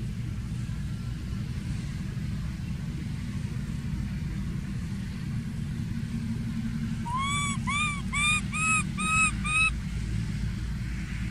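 Baby macaque crying: six short, high, arched coos in quick succession, about two a second, starting about seven seconds in. A steady low rumble runs underneath throughout.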